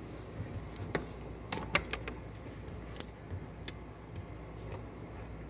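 Scattered small plastic clicks and taps as a plastic pry tool works the retainer clip loose on a car seat's power and airbag wiring connector, the sharpest click about three seconds in.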